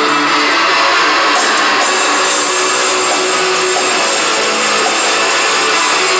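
Loud arena crowd noise, a dense wall of cheering and screaming, with the band's live music still faintly audible underneath.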